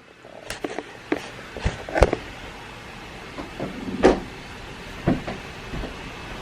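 A handful of scattered knocks and clicks, the loudest about two and four seconds in, over a steady background hum.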